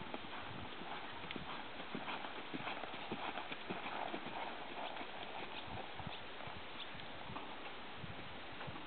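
Hoofbeats of a ridden American Paint Horse mare moving over a sand arena, a steady run of dull footfalls. They are loudest about three to four seconds in as the horse passes close, then fade as it moves away.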